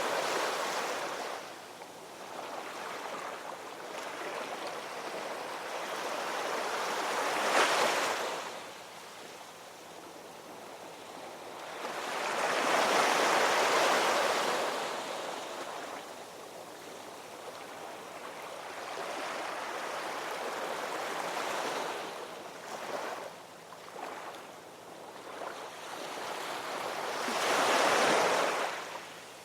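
Ocean waves breaking and washing on a shore, surging loudest about 7 seconds in, around 13 seconds and again near the end, with a quieter wash between.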